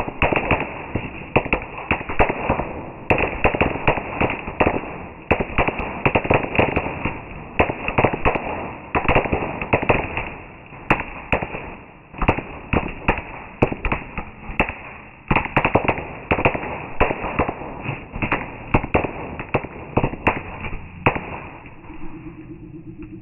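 Fireworks going off in a rapid run of sharp crackling bangs, several a second, that stops about 21 seconds in, leaving a low steady hum.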